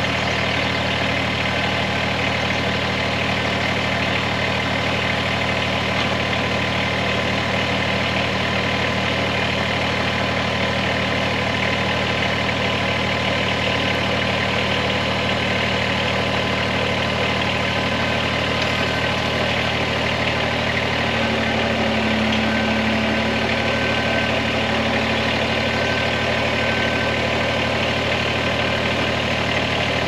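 Kubota BX2380 compact tractor's three-cylinder diesel engine running steadily at a low idle-like speed. A deeper hum swells for a few seconds past the middle.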